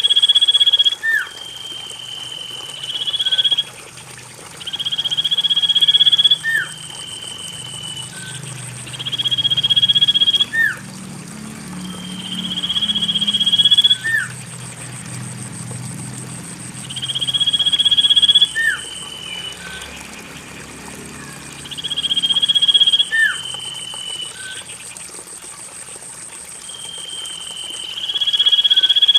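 Common iora (cipoh) song played as a lure, repeated about every four seconds. Each phrase is a long whistle that swells for about a second, followed by a short, sharply dropping note. A faint, steady high buzz comes and goes behind it.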